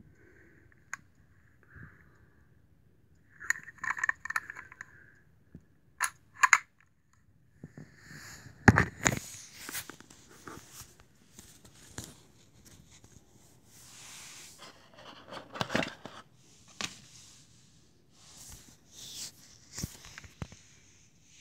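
Handling noise from unboxing an airsoft pistol: the cardboard box and its moulded pulp insert scraping and rustling, with scattered clicks and knocks of the pistol and box being handled. The loudest knocks come about nine seconds in and again near sixteen seconds.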